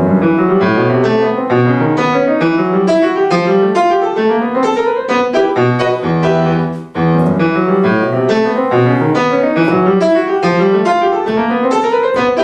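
Grand piano played: a fast passage of rapid running notes over repeated low notes, breaking off for a moment about seven seconds in before carrying on.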